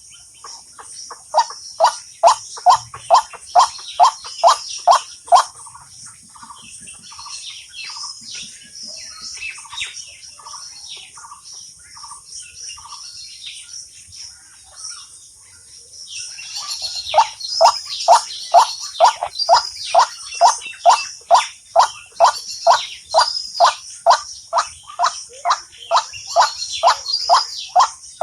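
A bird call played from a mobile phone as a trapping lure: a rapid series of short, falling notes, about three a second, that stops for about ten seconds and then starts again. Higher twittering chirps run over it.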